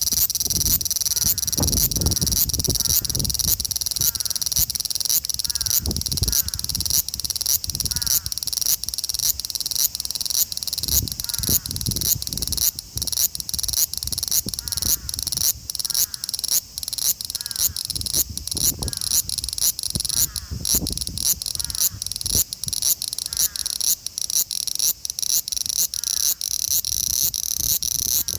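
Male large brown cicada (Graptopsaltria nigrofuscata) singing: a loud, high sizzling buzz pulsing about twice a second, with some low rumble at times.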